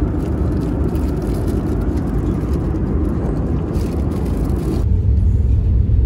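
Airliner cabin noise: a steady rush of engine and airflow noise with a strong low rumble. About five seconds in the hiss drops away and a deeper rumble remains, with the plane on the ground after landing.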